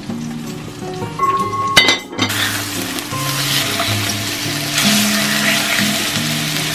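Thin pork slices sizzling in a hot stainless steel frying pan as they are turned with tongs. The sizzle swells about two seconds in, right after a sharp clink, over soft background music.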